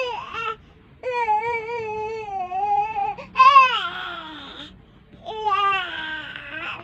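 A seven-month-old baby vocalizing loudly in four long, wavering calls, shouting happily rather than crying. The third call, about halfway through, is the loudest and starts high then falls.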